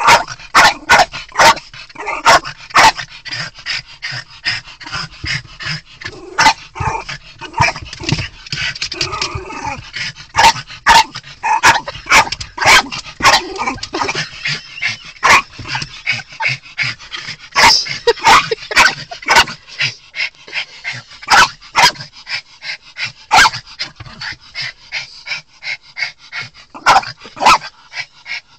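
Miniature pinscher barking and yipping frantically inside a car, a rapid string of sharp barks with no let-up: an agitated, aggressive outburst at other dogs in view.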